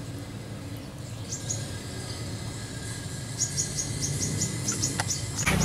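Rapid runs of short, high-pitched chirps, about four a second, coming in about a second in and going on steadily from halfway through, over a faint low background.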